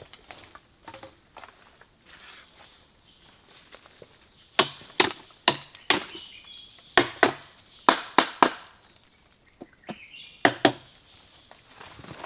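A jungle knife chopping into a plant stalk: about a dozen sharp strikes in quick groups of two to four, starting a few seconds in, over a steady high insect drone.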